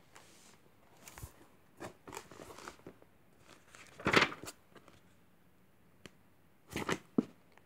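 Pages of a paper drawing book being turned and handled: a few short paper rustles and crinkles, the loudest about four seconds in and another near the end.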